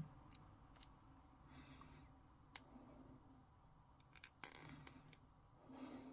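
Sparse, faint clicks and ticks of small plastic miniature parts being handled and pressed together, over near silence, with the clearest cluster of clicks about four seconds in.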